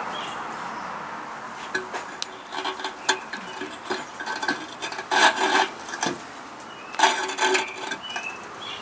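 Ceramic kiln shelf being slid and shifted on the floor of an electric kiln to center it: a gritty scraping and rubbing in short strokes, loudest in two runs about five seconds in and again about seven seconds in.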